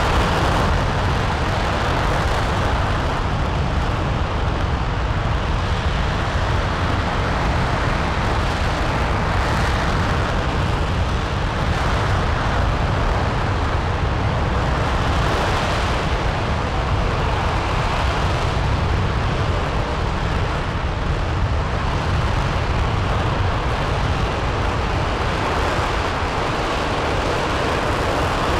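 RS-25 liquid-hydrogen/liquid-oxygen rocket engine (developmental engine E0525) firing at full run during a static hot-fire test. It makes a steady, dense rushing roar with deep rumble, swelling and easing slightly in level without a break.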